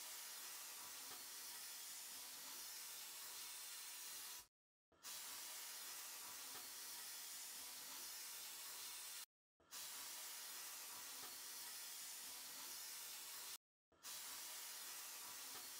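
Sandblasting gun firing abrasive at a rusty steel blade in a blast cabinet, stripping the rust: a steady hiss that breaks off into silence three times for a fraction of a second.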